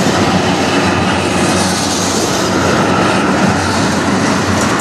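Freight train's tank cars and covered hoppers rolling past close by: a loud, steady rumble of steel wheels on the rails.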